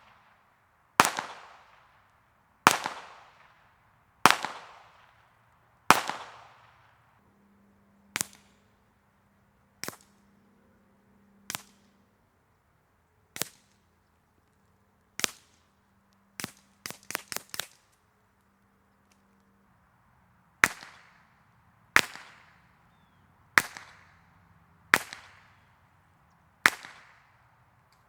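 .22 rimfire gunshots fired one at a time, about one every second and a half. Four louder shots with long echoing tails come first, then quieter short cracks that include a quick string of about five shots in under a second, then five more louder shots with tails near the end.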